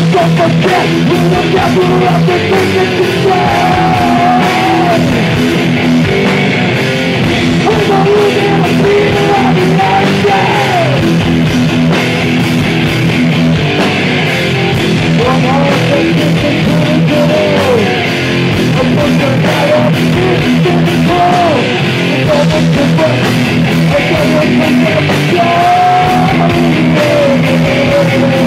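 Loud live crossover thrash played by a full band: distorted electric guitars, bass and drums running continuously, with shouted vocals and bending guitar lines.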